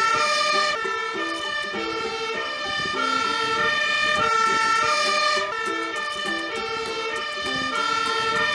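Fire engine's two-tone siren sounding continuously, its notes alternating between high and low pitches every half second or so.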